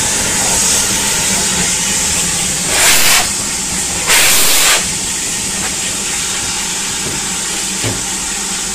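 Steam locomotive hissing steam steadily, with two louder blasts of steam about three and four seconds in.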